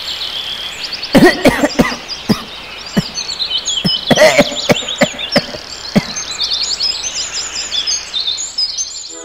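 A man coughing hard in a run of sharp fits from about a second in until about six seconds in, as he chokes on cigarette smoke. Birds chirp steadily behind it.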